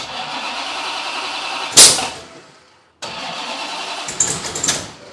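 Freshly built 556-cubic-inch Hemi V8 cranking and trying to fire, with one loud bang about two seconds in: a backfire through the intake. After a short break it cranks and sputters again, then fades near the end.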